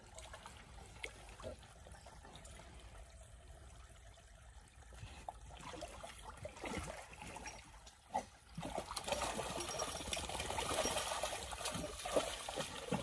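Dog wading through a shallow muddy stream pool, the water sloshing and splashing around it; the splashing grows louder and busier about two-thirds of the way in.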